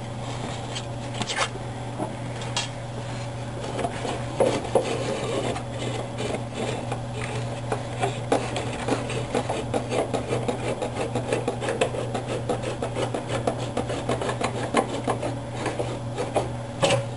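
Z-stage platform of an Ultimaker Original Plus 3D printer being worked along its steel guide rods. The linear bearings give a gritty rubbing with many small rapid clicks, which thicken about four seconds in and keep on.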